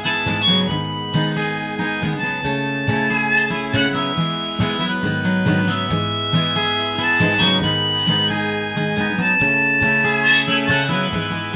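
Instrumental break in a song with no singing: a lead melody of held notes over acoustic guitar.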